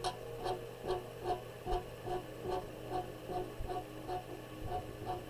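Soft, even ticking, about two and a half ticks a second, each tick with a short pitched note, over a steady low hum.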